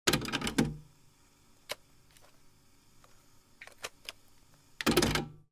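Old-film sound effect: crackling and popping like a worn film soundtrack. There is a dense burst of crackle with a low hum at the start, scattered single pops after it, and another dense burst near the end.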